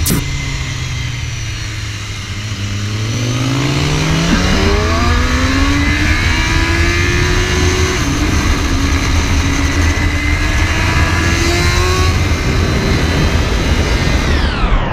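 BMW S1000RR inline-four sport bike engine accelerating hard on the road, its pitch low about two seconds in and then climbing steadily over several seconds, with rumbling wind noise on the onboard microphone. Near the end a swooping whoosh falls and rises.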